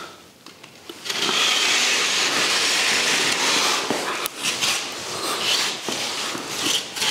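Utility knife slicing through the paper backing of a snapped plasterboard sheet along the fold, separating the broken-off strip. It makes a continuous scraping rasp starting about a second in, then rougher scratches with a few clicks.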